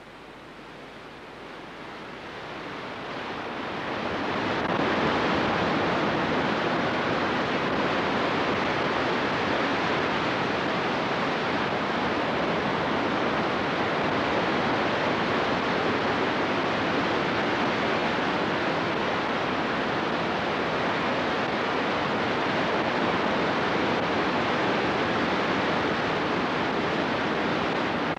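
Ocean surf breaking: a steady wash of noise that fades in over the first four seconds or so and then holds level.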